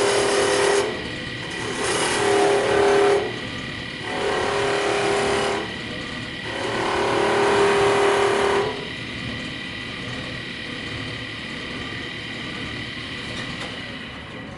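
Wood lathe running while a parting tool cuts grooves into a spinning wooden spindle: four rasping cuts in the first nine seconds, each a second or two long. After the cuts the lathe runs on its own with a steady whine.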